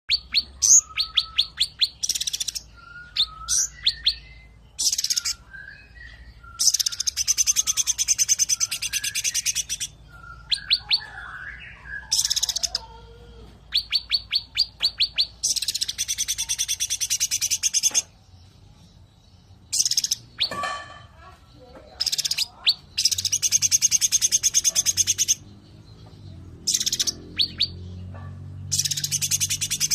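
Cucak ranting singing in its rapid 'tembakan' style. Dense rattling trills each last a few seconds and alternate with quick runs of sharp ticking notes and lower, slurred whistles, with short pauses between phrases.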